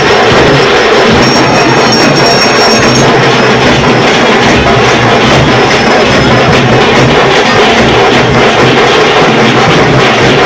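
Loud, continuous festival music dominated by drumming and percussion, dense and unbroken.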